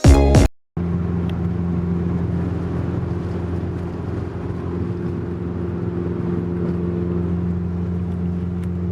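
Steady drone of a car being driven, heard from inside the cabin: a constant low engine hum over road noise.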